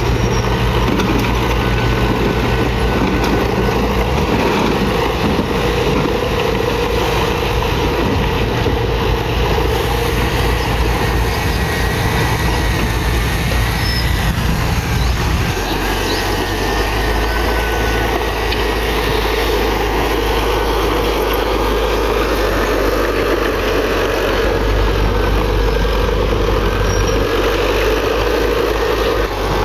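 Diesel engine of a Komatsu D31PX crawler bulldozer running steadily while working, its engine note shifting about halfway through.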